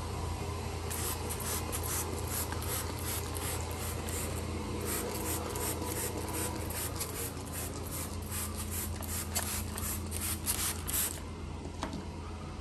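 Quick rubbing strokes of a brush or rake scrubbing into carpet, about three a second, starting about a second in and stopping near the end. A steady low machine hum runs underneath.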